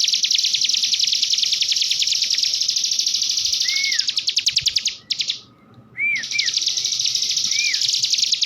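Cigun songbird singing a long, very fast canary-like trill with a few short rising-and-falling whistled notes mixed in; the trill breaks off about five seconds in and resumes a second later.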